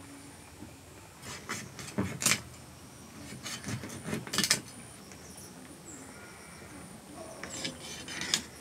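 Heavy cleaver chopping raw chicken on a wooden chopping block: sharp knocks in irregular clusters. The loudest strikes come about two seconds in and just after four seconds.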